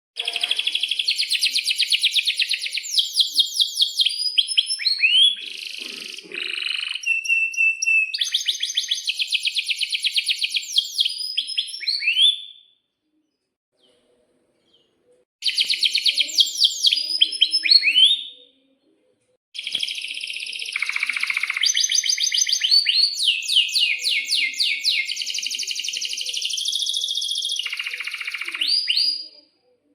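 Domestic canary singing: long phrases of fast rolling trills mixed with quick sweeping whistled notes and the odd held note. The song comes in three stretches, with short pauses about twelve seconds in and about eighteen seconds in.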